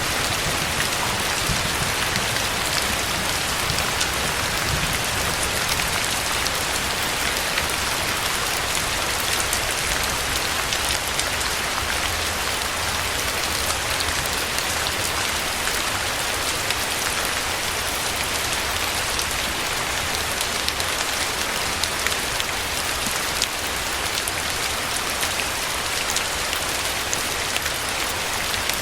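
Steady rain falling, an even hiss of many drops with fine individual drop ticks throughout.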